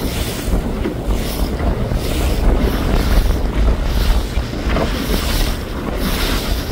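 Wind buffeting the microphone with a steady low rumble, while waves splash and rush against a sailing boat's hull in repeated hissing surges about once a second.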